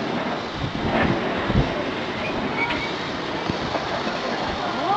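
NZR L class steam tank engine, built by Avonside in 1877, running slowly along the track: a steady hiss of steam with a few irregular thumps.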